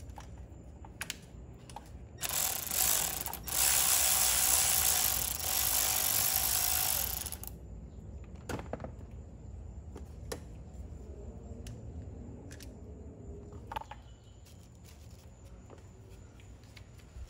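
Cordless electric ratchet running in two bursts, a short one and then a longer one of about four seconds, backing out the bolts of an oil filter housing. After it stops come scattered sharp clicks and taps of tools and metal parts being handled.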